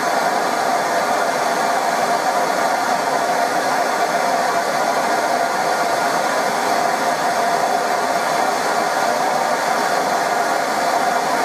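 Gas blow lamp burning steadily: an even rushing hiss with a faint steady tone, as it heats a steel rod for bending.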